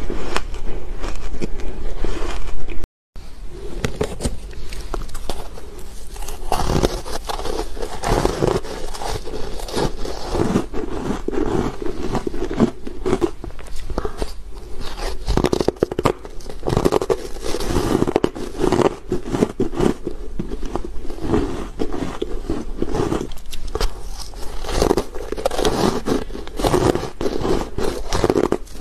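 Close-miked biting and crunching of powder-coated ice cubes: a dense run of irregular crisp crunches with chewing between them, broken by a brief silence about three seconds in.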